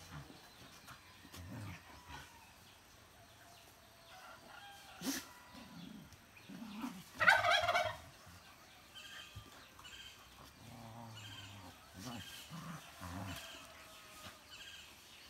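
Dogs growling and scuffling as they play-fight, in low intermittent rumbles. About seven seconds in, a short, loud, rapidly warbling bird call stands out above them.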